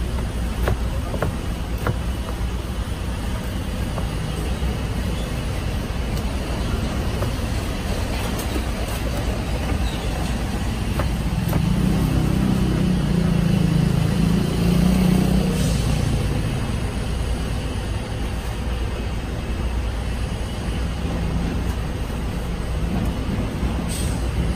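Street traffic: a steady low rumble, swelling louder for a few seconds in the middle as a heavy vehicle passes, with a few faint sharp taps of a knife on a cutting board.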